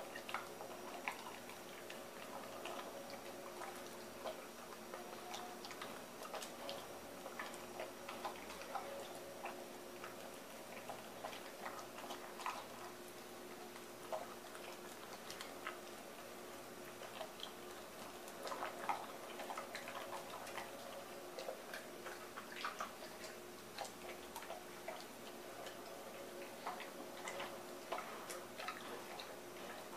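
Large dog eating soft homemade food from a stainless steel bowl: irregular faint clicks and clinks of its mouth against the metal bowl, with chewing.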